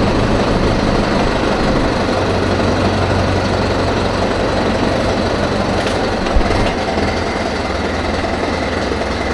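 Mahindra Yuvo Tech Plus 585 4WD tractor's diesel engine running steadily, with one short thump about six and a half seconds in.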